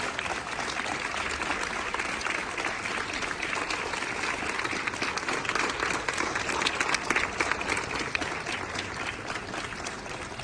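A crowd applauding, many hands clapping together. The applause grows louder about two-thirds of the way through and thins out near the end.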